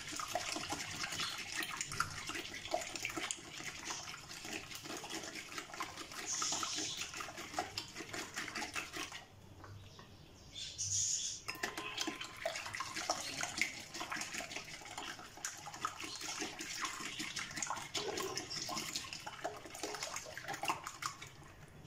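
Silicone whisk beating a runny egg mixture in a glass bowl: quick, wet slapping and sloshing. It stops for a couple of seconds about nine seconds in, while oil is poured, then starts again.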